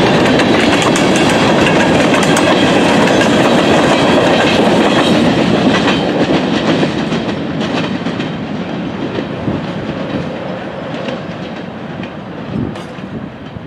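Freight train of covered hopper cars rolling past on the rails, steel wheels clicking over the track. The sound is loud for the first half, then fades steadily as the train moves away.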